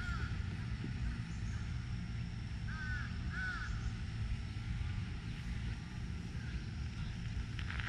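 A crow cawing, two short caws close together about three seconds in, over a steady low rumble.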